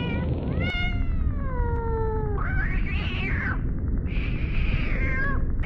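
Cat-like meowing and yowling: a long meow that falls in pitch, starting just under a second in, then two shorter, harsher yowls.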